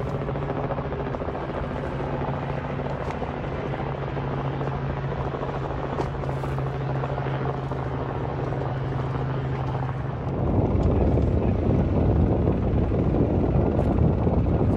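Steady low engine drone with an even hum. About ten seconds in it gives way to a louder, rougher rushing rumble.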